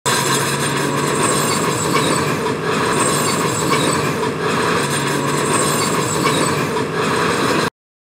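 Shantui crawler bulldozer working rock: the diesel engine running steadily under load while its steel tracks clank and squeal. The sound cuts off abruptly near the end.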